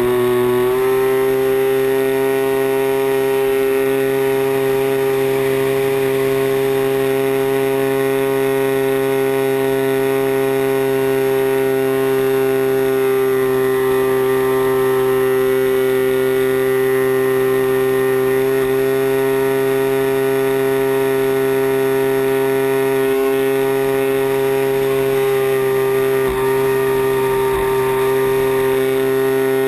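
The 40cc CRRC two-stroke gas engine of a giant-scale RC plane, heard up close from the airframe, running steadily in flight with its propeller turning. The pitch rises slightly in the first second and dips briefly near the end.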